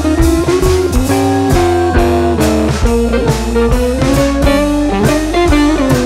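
Background music: a guitar-led tune with bass and drums keeping a steady beat.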